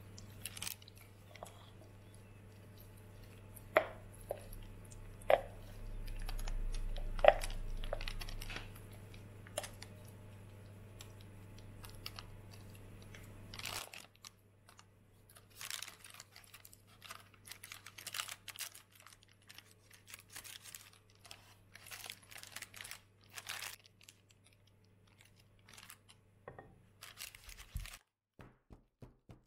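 A spatula scrapes thick blueberry yogurt cake batter out of a bowl, with a few sharp taps in the first half. Then the batter is spread in a parchment-lined loaf tin: many short scratchy strokes, with the baking paper crinkling.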